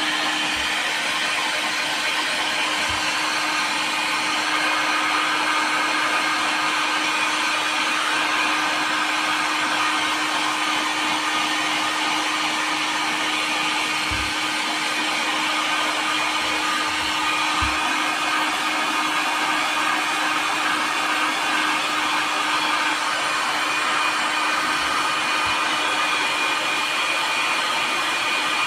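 Handheld electric heat gun running steadily, its fan blowing hot air with a steady hum, while it shrinks a plastic bottle onto a battery pack. A few faint low bumps.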